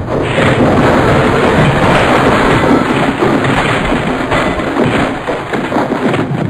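Loud, continuous crashing and smashing, as of things breaking, starting suddenly and running on without a pause.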